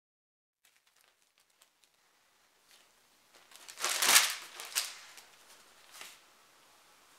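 Newspaper rustling and crinkling as it is slid onto a wooden table, loudest about four seconds in, with two smaller rustles after.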